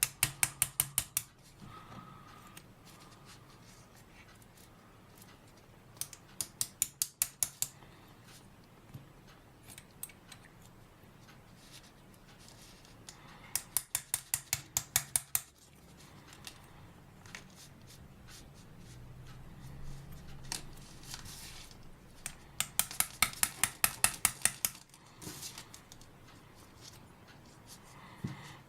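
Runs of light, sharp taps, about six to eight a second, in four bursts with pauses between them: a warmed bearing being tapped out of a TBS 750 kV brushless motor.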